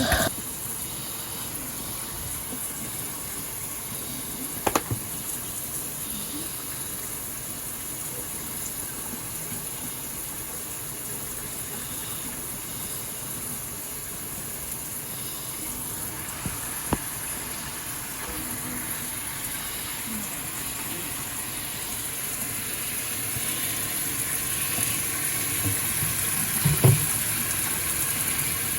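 Tap water running steadily into a sink as a child's hair is rinsed under it, with a few short knocks along the way.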